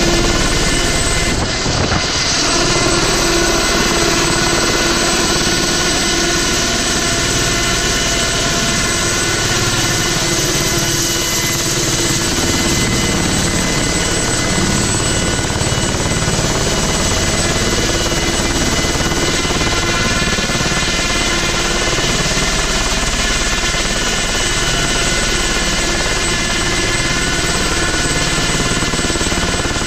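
Ultrasport 496 ultralight helicopter hovering just above the ground: a steady engine drone with the rotor's chopping wash, holding one even pitch and loudness throughout.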